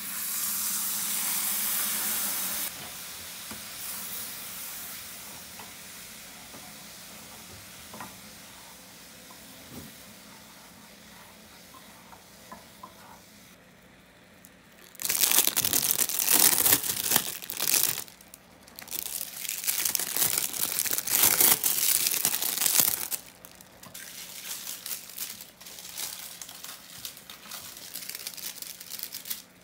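Cold milk poured into a hot saucepan of butter-and-flour roux sets off a sudden loud sizzle for about three seconds, which then fades. About fifteen seconds in, a plastic-wrapped cheese slice is crinkled and torn open in two long loud stretches, and near the end a wooden spatula stirs and scrapes in the pan.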